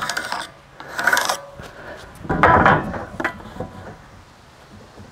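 A straightaway bar and a marker rubbing and scraping across a stack of pressure-treated wooden fence posts as they are marked. There are a few short scrapes, then a longer, louder one about two and a half seconds in, then quieter rubbing.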